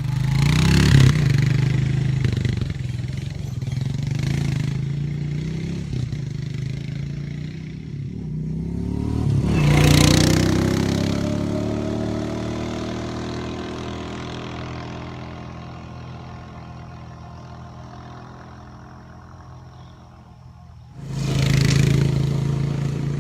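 ATV engine running and revving under load. It peaks about ten seconds in, then drops in pitch and fades, and it comes back loud again near the end.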